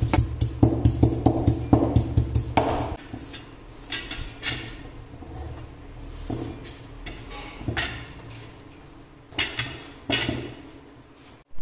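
Music with a drum beat that stops about three seconds in, followed by scattered scrapes and clinks of spice seeds and a small metal spoon against a cast-iron kadai.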